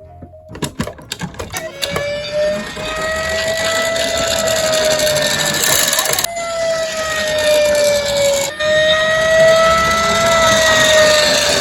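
A quick run of clicks and rattles, then a fire engine's wail siren sweeping slowly up and down over a continuous noisy rattle, with two abrupt jumps in the tone.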